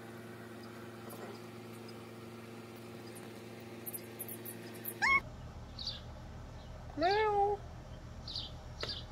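A small black kitten meowing: a short, high rising mew about five seconds in, then a longer meow that rises and holds about seven seconds in.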